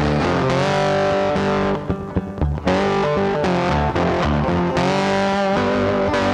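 Background instrumental music led by guitar, loud and steady, thinning briefly about two seconds in.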